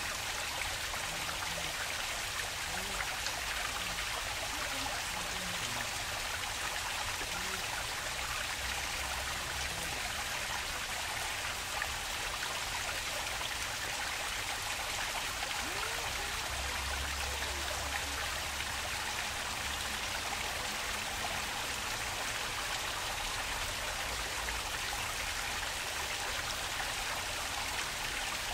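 Water flowing in a park stream, a steady, unbroken rush.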